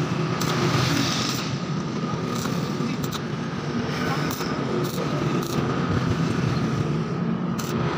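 Stick (arc) welding: a steady crackling hiss from the electrode arc over the welding machine's hum, with a few sharp clicks.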